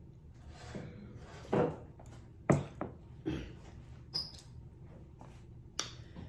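Mouth sounds of a person sipping a drink from a mug and smacking the lips: a handful of short slurps and smacks, the loudest about two and a half seconds in.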